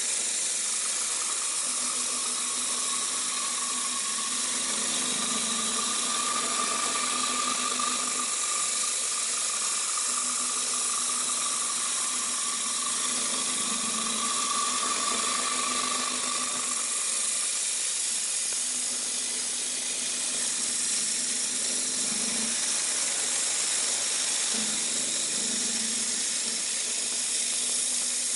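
Giddings & Lewis PT1800 CNC horizontal boring mill cutting a metal block with a spindle-mounted tool: a steady hiss with a whine that fades out about two-thirds of the way through.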